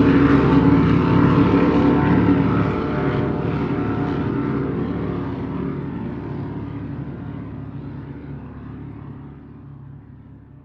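A steady engine drone made of many held pitches, fading away gradually over about ten seconds until it is almost gone.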